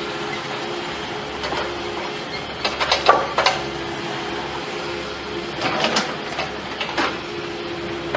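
A machine running with a steady hum, broken twice by short runs of clattering knocks.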